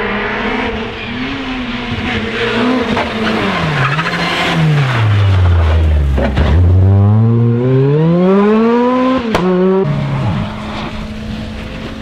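Opel Adam R2 rally car's engine at high revs, its pitch falling as the car brakes and slides through a loose bend with tyre noise. The pitch then climbs steadily as it accelerates away, ending in a sharp click. About ten seconds in, the sound cuts to another car's engine running steadily and more quietly.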